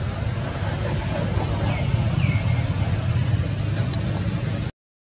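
Steady low background rumble, like traffic or wind, with two faint short falling squeaks about two seconds in. The sound cuts out briefly near the end.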